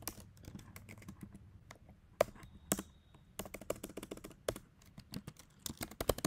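Typing on a computer keyboard: irregular key clicks, coming in quicker runs in the second half.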